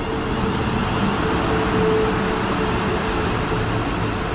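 Passenger train pulling into the station platform: a steady rush of wheels and air with a steady hum running through it, loudest about two seconds in.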